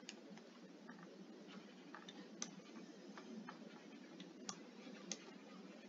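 Near silence with faint, irregular clicks of a stylus tip tapping on a tablet screen during handwriting, about seven in all.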